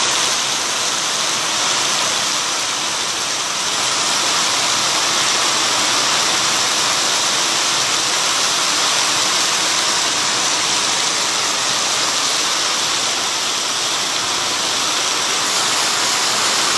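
Heavy rain pouring steadily onto a flooded road, a constant hiss of the downpour splashing into standing water.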